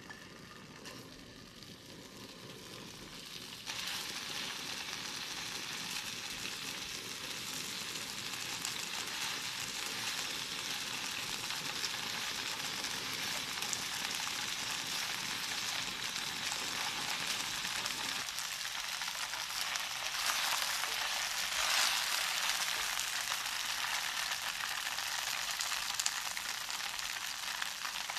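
Cubes of thick deep-fried tofu (atsuage) sizzling in hot oil in a frying pan. The sizzle is faint at first, jumps louder about four seconds in, then holds steady as the pieces brown.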